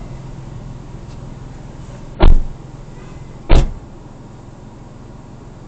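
Two loud thumps about a second apart, typical of car doors being shut, over the car's steady low cabin hum.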